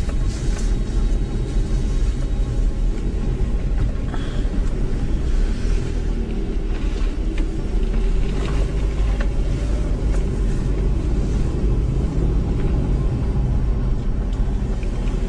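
Car driving at low speed: a steady low rumble of engine and tyres on the road.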